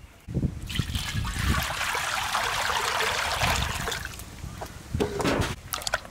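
Water pouring and splashing into a large metal wok, a steady rush that starts just after the beginning and dies away about four seconds in. Then comes a shorter splash with a few sharp knocks as a large slab of raw beef is lowered into the water.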